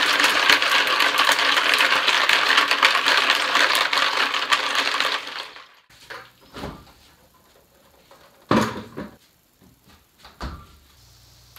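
Kitchen faucet running into a plastic bowl of ice and salt, the stream splashing and clattering over the ice cubes, cutting off abruptly about six seconds in. A few soft knocks and footsteps follow, the loudest a thud a couple of seconds later.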